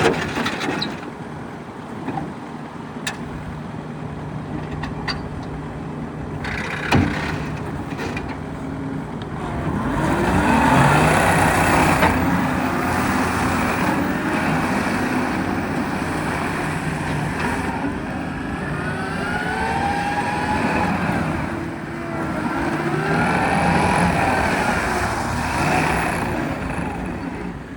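John Deere 333G skid steer's diesel engine running, with a few sharp knocks in the first several seconds. From about ten seconds in it grows louder and carries whining tones that rise and fall as the machine works.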